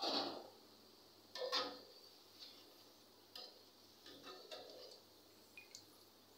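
Slotted steel spoon scraping and clinking against a karahi as fried spinach pakoras are lifted out of the oil: about half a dozen short scrapes and knocks, the loudest at the start and about a second and a half in.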